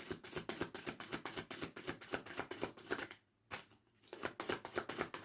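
A deck of cards being shuffled by hand: a quick, soft run of card clicks, several a second, breaking off briefly a little past halfway and then going on.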